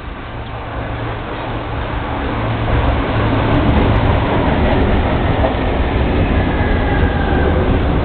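Electric train on the overhead-wired line passing close by: its rumble and hum grow louder over the first three seconds, then run steady and loud.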